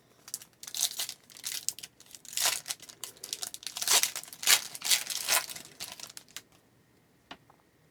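A trading-card pack wrapper being torn open and crinkled by hand, in a run of short rustling, tearing bursts that stop about six and a half seconds in.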